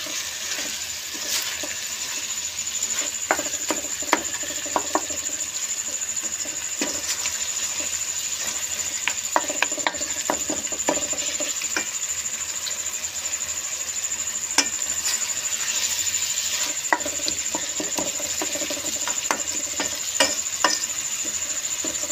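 Beef keema with yogurt sizzling in hot oil in a steel kadai while it is stirred and scraped with a spatula, with frequent sharp scrapes and knocks of the spatula against the pan. This is the bhuna stage, frying the mince down well before the potatoes go in.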